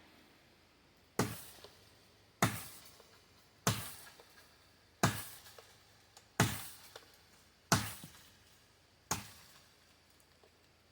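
Seven chops of a Honshu Boshin wakizashi's steel blade biting into a tree trunk, one about every 1.3 seconds, each a sharp strike that dies away quickly.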